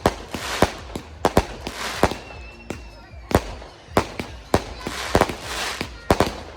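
Fireworks bursting: about a dozen sharp bangs at uneven intervals, with crackling between them.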